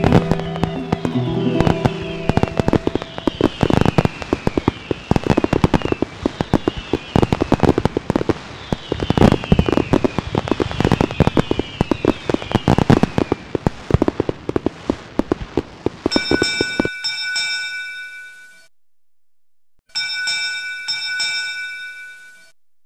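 Fireworks display: rapid, dense bangs and crackling shell bursts with repeated falling whistles, which stop abruptly about 17 s in. Two short ringing sounds follow near the end.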